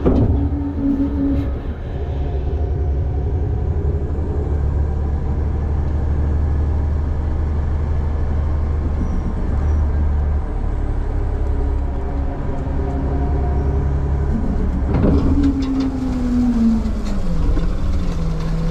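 Front-load garbage truck running with its packer working: a steady low engine and hydraulic rumble. About fifteen seconds in come a few knocks, and the engine note sinks over a few seconds, then climbs again near the end.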